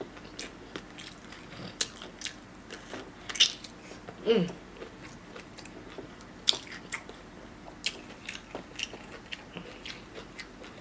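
Close-miked eating: biting and chewing with many short wet mouth clicks and occasional crunches. A brief falling vocal sound comes about four seconds in.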